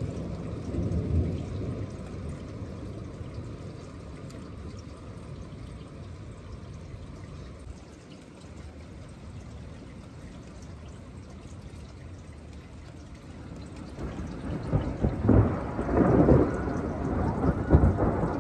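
Thunder rumbling over steady rain. A low rumble fades after the first couple of seconds, then a louder rolling rumble builds about fourteen seconds in and peaks several times near the end.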